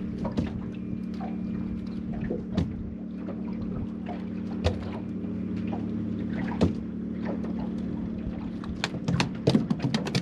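Small waves slapping against the hull of a small boat, one sharp slap about every two seconds, then several quicker slaps near the end, over a steady low hum.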